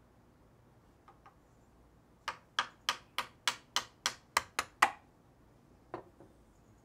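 A mallet striking the wooden handle of a carving chisel held on a workbench: about ten quick knocks at roughly three a second, the last one loudest, then a single knock about a second later.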